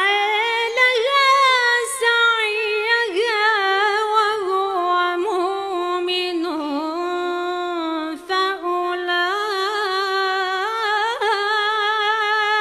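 A woman's melodic Quran recitation in the Moroccan style, unaccompanied: one long drawn-out phrase held on a sustained voice with small ornamental turns of pitch, broken only briefly about eight seconds in.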